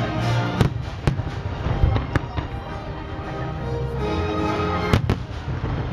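Aerial fireworks shells bursting in a series of sharp bangs, two of them close together near the end, over music playing along with the display.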